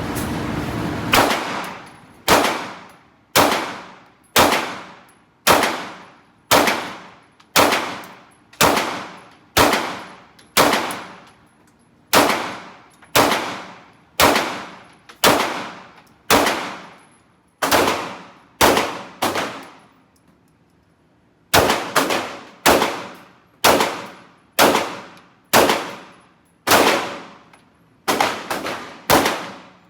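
Gunshots fired one at a time at a steady pace of about one a second, each followed by a short echoing tail. A brief pause comes about two-thirds of the way through, and near the end the shots come closer together.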